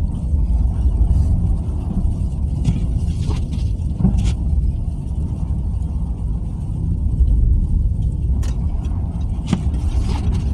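Steady low rumble of a car driving, engine and tyre road noise heard from inside the cabin, with a few brief ticks and knocks.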